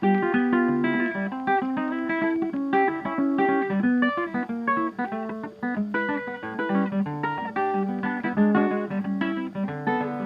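Background music: a plucked acoustic guitar picking a quick, even run of notes.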